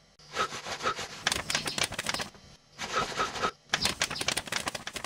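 Rapid, dry clattering clicks like typewriter keys, coming in three runs broken by two short pauses.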